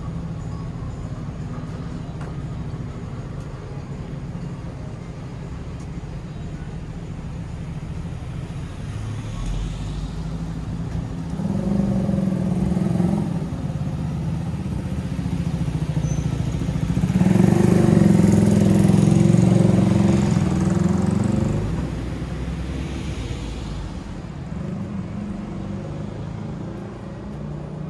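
Street traffic: a steady low rumble, with one vehicle passing close by near the middle and a louder, longer pass by a second vehicle about two-thirds through.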